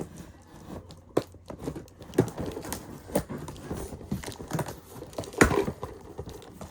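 A cardboard toy box being handled and opened: rustling, scraping and tearing with scattered sharp clicks and knocks, the loudest about five seconds in.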